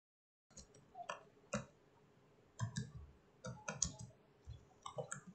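Computer keyboard keystrokes typing code: irregular clusters of sharp clicks with short pauses between them, starting about half a second in after a moment of silence.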